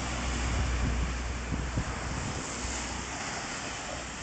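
Wind buffeting the microphone with a low rumble, over the steady wash of heavy surf raised by a typhoon. The rumble eases about two seconds in.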